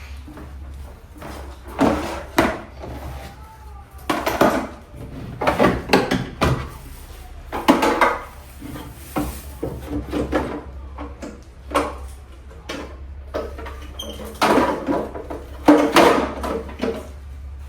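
Refrigerator shelves and drawers being taken out and handled: irregular clattering and knocking of the removable parts, over a steady low hum.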